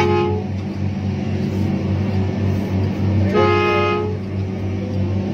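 Komatsu PC1250 excavator's diesel engine running steadily, heard from inside the cab, while a two-tone horn toots briefly at the start. About three seconds in it sounds again for most of a second, its pitch sliding up as it begins.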